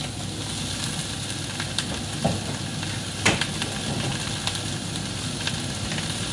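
Sliced onions and thinly sliced raw meat sizzling steadily in a hot frying pan as the meat is tipped in, with a few light clicks along the way.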